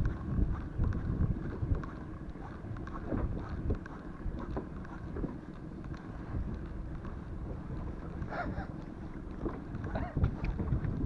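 Wind buffeting the microphone over small waves slapping an inflatable boat, with light ticks from a spinning reel being wound in.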